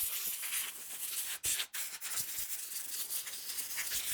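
Caked muck being scraped and rubbed off the top of a diesel Toyota Hilux fuel tank, a gritty rubbing with a couple of sharp knocks about one and a half seconds in.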